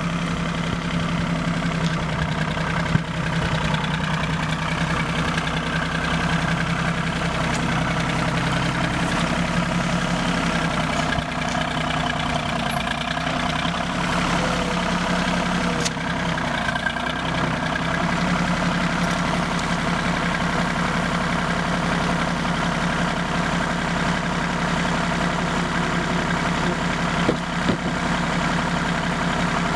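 John Deere 750 compact tractor's three-cylinder diesel engine idling steadily, with a few brief knocks.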